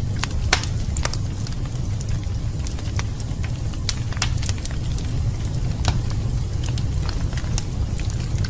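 Wood fire burning in a fireplace, with sharp irregular crackles and pops over a steady low rumble.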